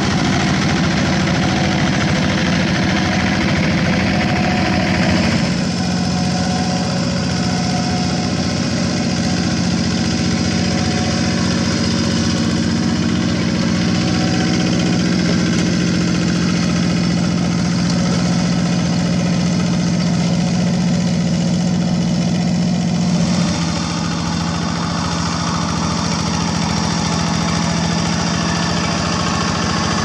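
Quick G1000 two-wheel walking tractor's Kubota diesel engine running steadily. The tone shifts abruptly about five seconds in and again near the end.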